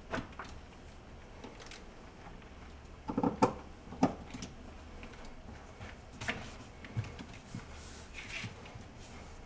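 Light clicks and knocks of glass mosaic tile sheets being handled and pressed into thinset on the wall, the pieces clinking as they are fitted. The loudest is a quick cluster of knocks about three seconds in, followed by a single sharp knock.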